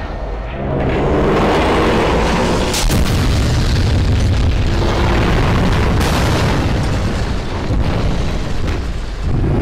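Animated battle soundtrack: heavy booms and explosions over a steady low rumble, with a music score underneath. Sharp impacts hit about three seconds in and again about six seconds in.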